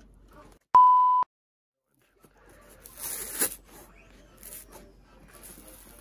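A loud, steady half-second beep edited in over a word, followed by about a second of dead silence. Then scraping and peeling sounds as a glued thin rubber half sole is pulled back off the leather sole of a shoe, loudest about three and a half seconds in.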